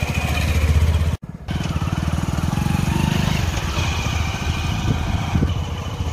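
A small engine running with a rapid, even beat, cut off for an instant about a second in. After about three and a half seconds the beat gives way to an uneven low rumble.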